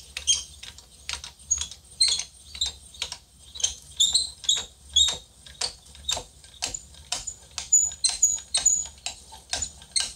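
Manual milling machine cross table being hand-traversed along its X axis, giving a run of irregular sharp metallic clicks, a few of them with short high squeaks.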